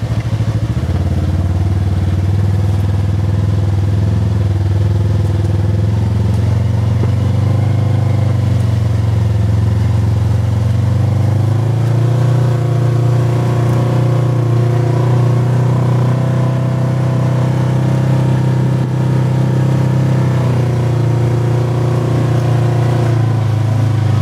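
Polaris RZR side-by-side engine running steadily at low trail speed, heard from inside the cab. Its pitch rises a little about halfway through and eases off near the end.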